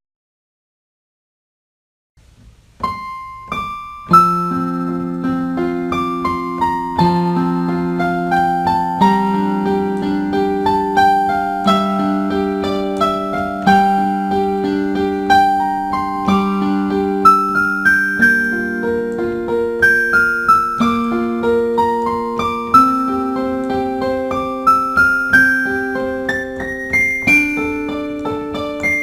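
Silence for about two seconds, then piano music starts: a melody of separate notes over held lower notes, at an even pace.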